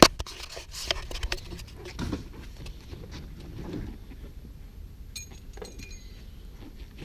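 Handling noise of parts being worked loose inside a car interior: a sharp knock at the start, then scattered clicks, small knocks and light clinks, with a brief faint metallic ring about five seconds in.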